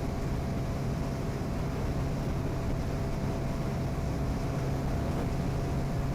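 Honda CB1000R's inline-four engine with an aftermarket sport exhaust, running at a steady cruise with an even, unchanging pitch, with wind noise over it.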